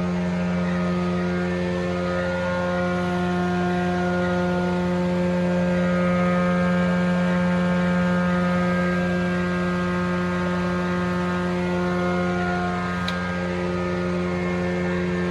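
Frommia combination planer-thicknesser running steadily, its motor and cutter block giving a loud, even hum that swells slightly in the middle.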